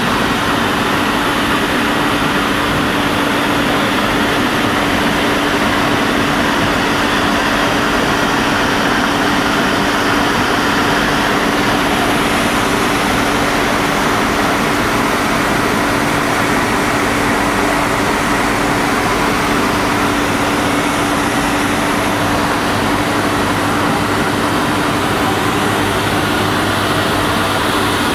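BEX France RGT W 120 plastic recycling extrusion line with an underwater pellet cutter, running at production: a loud, constant machine noise with a steady hum.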